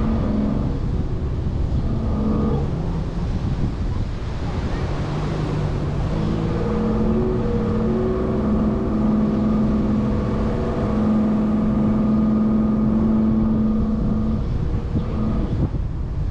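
Chevrolet Colorado ZR2 Bison pickup driving on beach sand: its engine runs with a steady note that sits higher from about six seconds in, over a rush of wind on the microphone.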